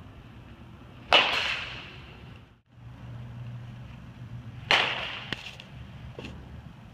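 A baseball bat cracks against a pitched ball twice, about a second in and again near five seconds. Each hit is sharp and loud with a short echoing ring, and a couple of lighter knocks follow the second hit.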